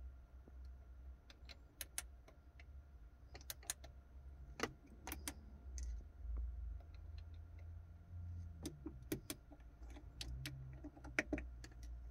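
About a dozen faint clicks of the push buttons on an Audi RNS-E car navigation and radio unit as they are pressed, over a low steady hum.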